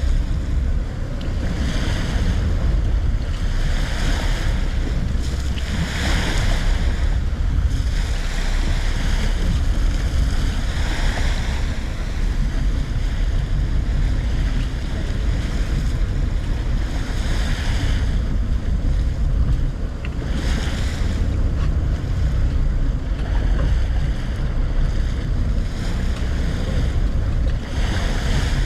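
Boat under way at sea: a steady low rumble of engine and wind on the microphone, with washes of water and spray off the hull coming and going every few seconds.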